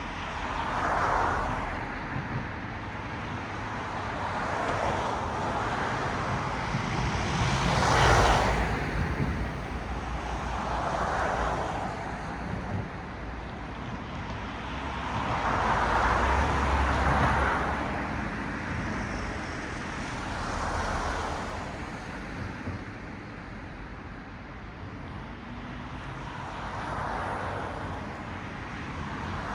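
Cars passing one by one on a road, each a swell of tyre and engine noise that rises and fades, about seven passes in all. The loudest and closest pass comes about eight seconds in.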